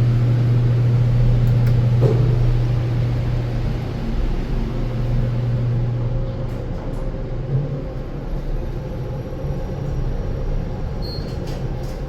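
Kone MonoSpace gearless traction elevator car riding down the hoistway: a steady rushing ride noise with a strong low hum that drops away about halfway through.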